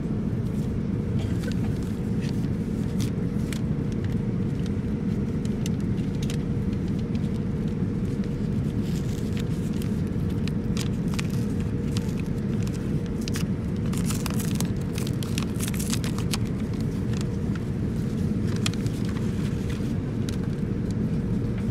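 Steady low rumble of a Boeing 787-9 airliner cabin, with a faint steady hum on top. Over it, a paper envelope crinkles and rustles in short clicks as it is torn open and the wrapped mask and wipes are pulled out, busiest through the middle.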